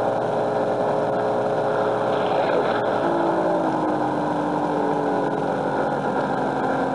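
Coin-operated Coastwatch Boat kiddie ride playing its motorboat engine sound effect through its built-in speaker: a steady engine drone, with a lower note coming in about three seconds in and slowly falling in pitch.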